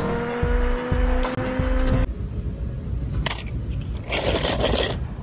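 Film soundtrack of music with a steady beat and a car engine running, cutting off suddenly about two seconds in. After the cut comes an outdoor recording with two bursts of rustling noise, a short one and then a longer one about a second later.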